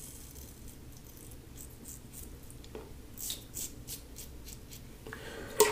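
LASSCo BBS-1 stainless steel safety razor with a Gillette Silver Blue blade cutting stubble through shave lather in short strokes, a faint rasp with each pass, several in quick succession about three seconds in. A short, sharper click near the end.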